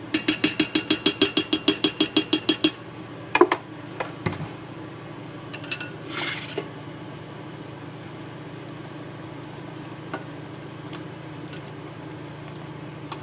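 Spatula knocking rapidly against an enameled cast-iron Dutch oven, about six ringing taps a second for nearly three seconds, then one louder knock. Scattered small clinks and a scrape follow over a steady low hum.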